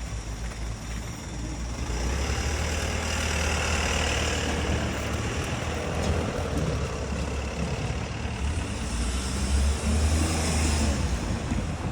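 A heavy vehicle passing close by: a steady low rumble with a broad rushing noise that grows louder about two seconds in.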